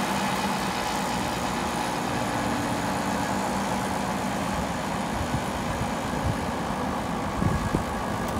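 A heavy machine's engine running steadily, with a few low knocks in the second half.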